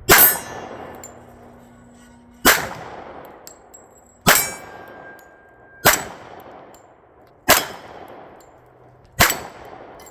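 Six shots from a SAR K2 .45 ACP pistol, fired at an even pace about every second and a half to two seconds, each followed by a metallic ring, with a held tone after some shots as struck steel targets keep ringing.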